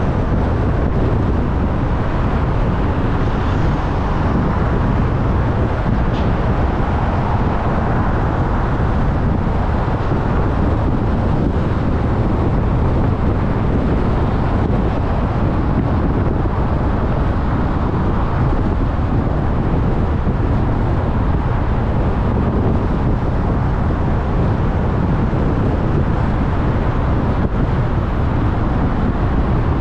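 Steady road noise from a car driving along: tyre and engine noise, low and even throughout, with no sudden events.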